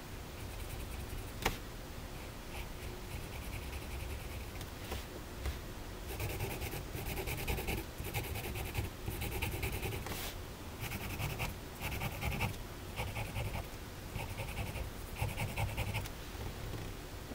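Black marker pen drawing on paper: a run of short strokes, each about half a second with short gaps, softer at first and louder from about a third of the way through. A single sharp click sounds shortly after the start.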